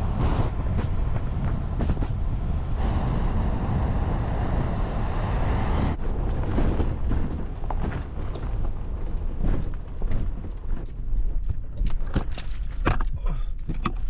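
Car driving, with steady tyre and wind noise over a low rumble. From about six seconds in, on a rough, potholed service road, the rumble is broken by uneven knocks and rattles as the car jolts over the bumps.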